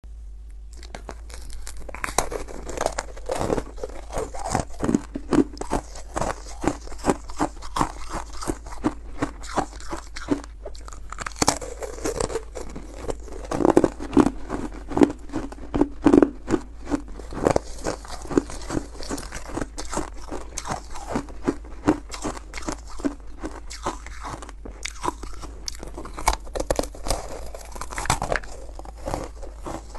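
Freezer frost being bitten and chewed close to the microphone: dense, irregular crunching that starts about half a second in and keeps going.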